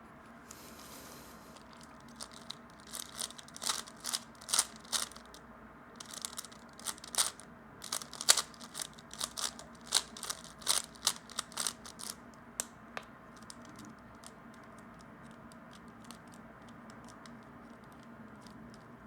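A 3x3 speedcube being turned quickly during a solve: rapid, irregular plastic clicking and clacking of the layers, which stops about two-thirds of the way through, leaving only a few faint clicks.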